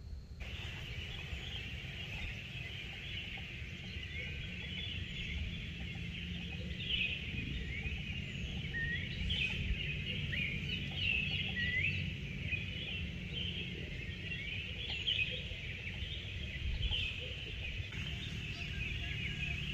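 Dawn chorus of many birds calling and chirping over each other, with a steady low rumble underneath.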